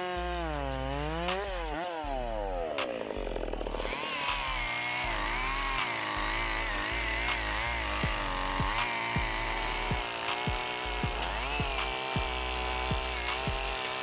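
Chainsaw engine dropping in speed and revving back up, then running steadily under load with its pitch wavering, as when cutting through wood.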